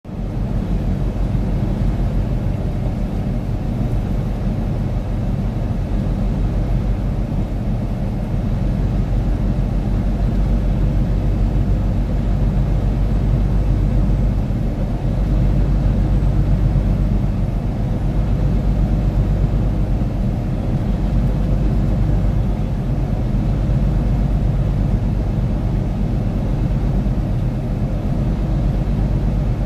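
Steady low rumble of a vehicle driving at highway speed, heard from inside the cab: engine, tyre and wind noise mixed together, with a faint low hum underneath.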